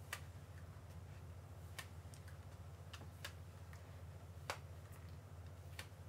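Corded hair iron clicking and tapping as it is clamped and drawn through the hair: about seven sharp, irregular clicks, the loudest about four and a half seconds in, over a steady low hum.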